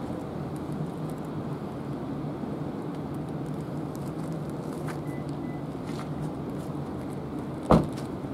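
Steady low outdoor rumble, with a single loud thump near the end.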